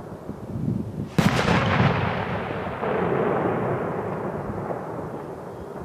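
A loud firework bang about a second in, followed by a long rolling echo that slowly fades, with a second, duller boom about three seconds in.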